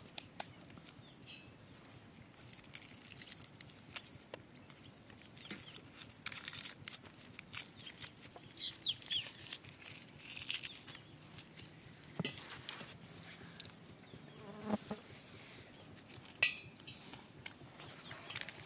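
Faint, scattered rustling and crackling of dry onion skins being peeled by hand, with a few short chirps.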